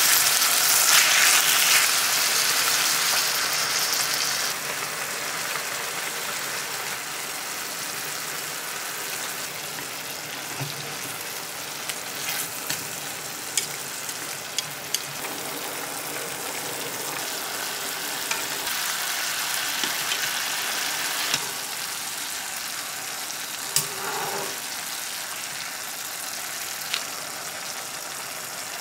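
Food frying in a pan: a steady sizzle, louder for the first few seconds and then settling, with a few sharp clicks scattered through it.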